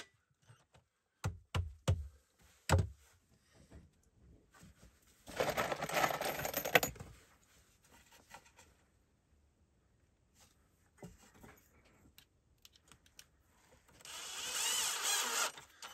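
A few dull wooden knocks in the first three seconds, a short rustling, scraping patch a few seconds later, then long near quiet with faint ticks, and a rising rustle near the end.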